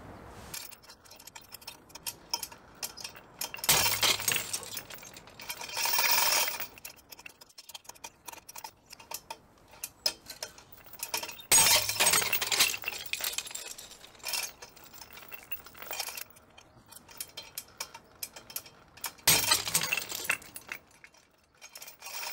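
Three times, an SLM 3D-printed metal test piece snaps under a pulling load. Each break sets the hanging crane scale, its steel hooks and chain jolting, clinking and rattling for a second or two, with small clicks between the breaks.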